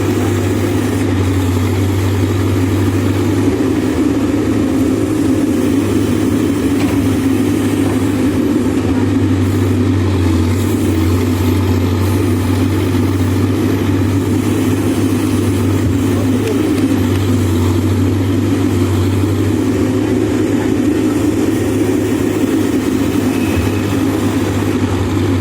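Backhoe loader's diesel engine running steadily, a constant low hum that holds the same speed throughout.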